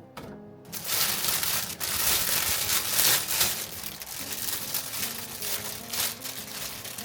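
Loud crinkling and rustling of something being handled, starting about a second in, with quiet acoustic guitar music underneath.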